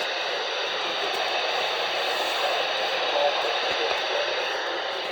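Weather radio receiver giving a steady static hiss, a noisy signal with no clear voice or alert tone.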